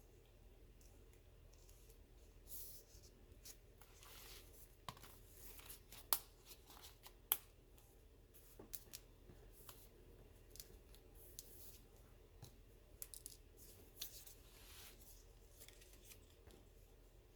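Faint handling of paper and card stock: short rustles and scrapes with scattered light taps, and two sharper clicks about a second apart near the middle.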